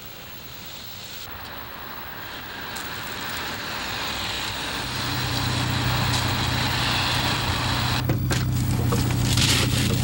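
Car engine running at the curb amid street traffic noise, the whole growing steadily louder, with a steady low hum coming in about halfway through. A few sharp clunks near the end.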